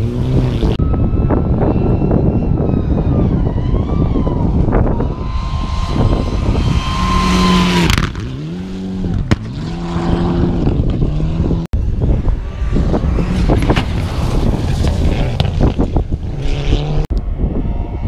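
Rally cars at full speed on a gravel stage, several in turn. Each engine revs hard and climbs in pitch, drops at each gear change and climbs again. About five seconds in there is a loud hiss of tyres and thrown gravel as a car passes close.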